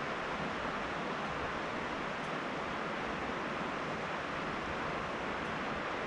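The Illinois River rushing, a steady, even wash of water noise with no breaks or changes.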